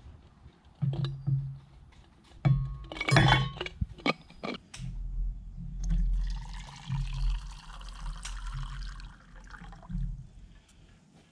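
A few sharp clinks and knocks of a bottle and mugs, then water running from the spigot of a plastic water jug into a mug for about five seconds before it stops.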